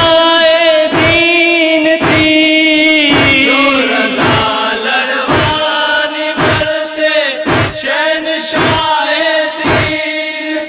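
Noha chanting: a chorus of voices holds long, steady notes, while matam chest-beating strikes land in a steady rhythm about once a second.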